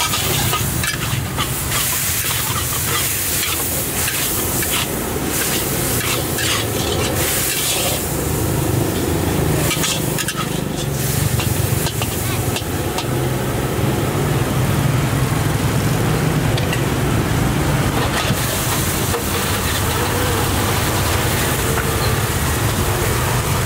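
Metal spatula scraping and clanking against a steel wok while prawns, meat and vegetables sizzle over high heat: stir-frying. A steady low hum runs underneath.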